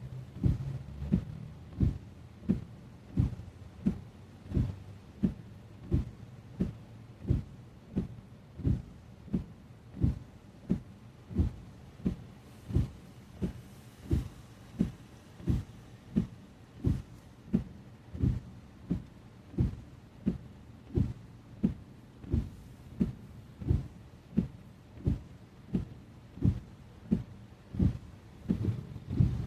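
Car windscreen wipers running in heavy rain, their blades thudding at each end of the sweep in an even rhythm of about one and a half strokes a second, over a faint hiss of rain and road noise.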